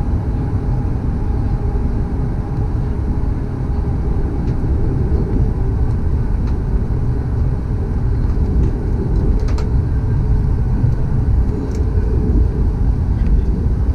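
Cabin noise of a Boeing 737 MAX taxiing: its CFM LEAP-1B engines at idle thrust, heard from a seat over the wing as a steady low rumble.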